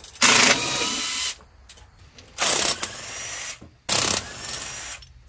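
Cordless impact wrench hammering in three bursts, the first the longest and loudest, loosening bolts on a V8's cylinder head.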